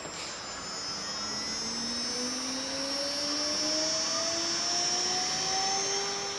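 CNC router spindle motor spinning up after the job is started: a whine that rises steadily in pitch over a few seconds and levels off near the end, over a steady hiss.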